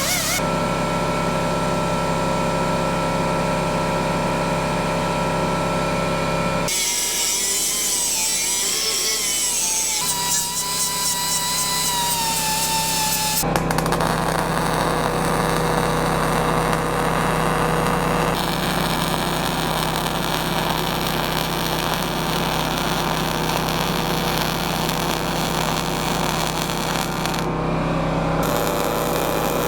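Power tools working steel frame rails, heard in a run of separate clips that cut abruptly from one to the next. A machine's pitch wavers and sags under load partway through, and later stretches are noisier, like grinding.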